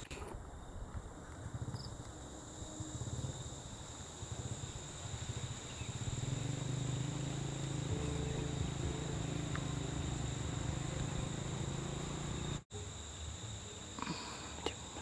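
Insects chirring steadily in the forest, a constant shrill high tone. A low rumble swells from about six seconds in, and all sound drops out for an instant near the end.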